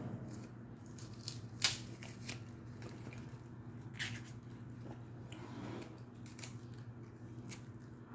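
Dry, papery onion skin being peeled off by hand: scattered crisp crackles and snaps, with a sharper snap about one and a half seconds in and another about four seconds in, over a steady low hum.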